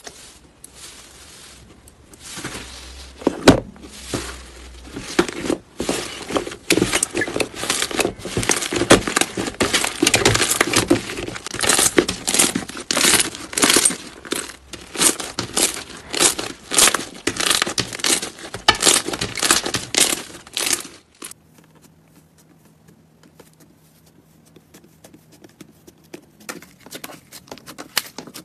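Slime being pressed, squeezed and stretched by hands, giving dense rapid crackling and popping clicks. About two-thirds of the way through it turns much quieter, to soft squishing with a faint low hum.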